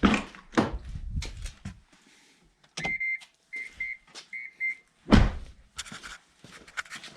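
Car door and cabin handling knocks, then an electronic warning chime: one longer beep and several short paired beeps about three seconds in, followed by a heavy door-like thud about five seconds in.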